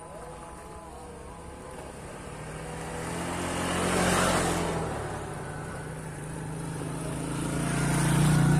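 Two motorcycles passing close by one after the other: engine sound swelling and fading as the first goes past about four seconds in, then a second, louder pass near the end.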